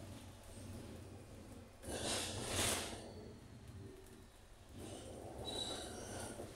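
Bus engine heard from the upper deck, its blown exhaust puffing and rasping over a low rumble, swelling louder twice.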